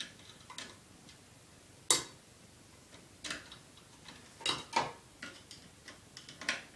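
Irregular light clicks and taps of a screwdriver against metal screws and blade brackets as a ceiling fan's blades are unscrewed. One sharp click about two seconds in is the loudest.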